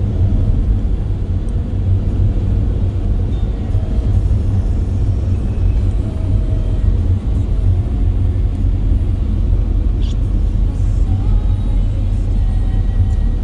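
Steady low rumble of a moving van's engine and road noise, heard from inside the cabin.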